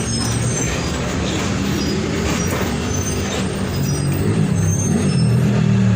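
Mercedes-Benz OF-1722M bus's diesel engine running. In the last couple of seconds it picks up revs, rising in pitch and getting a little louder.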